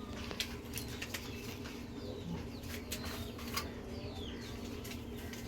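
Faint bird chirps, short and scattered, over a low steady hum, with a few light clicks.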